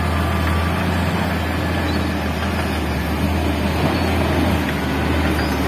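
Diesel engine of a Shantui 90-tonne mining dump truck running as the truck drives over loose dirt: a steady, loud low drone.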